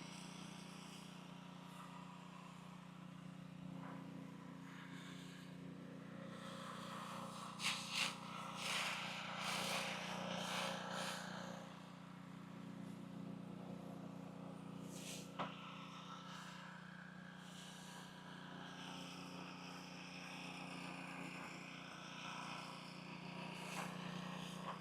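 Simpson ALH3425 pressure washer with its Honda GX engine running steadily while the wand sprays aluminum cleaner solution, a faint hiss of spray over the engine's hum, louder for a few seconds about a third of the way in.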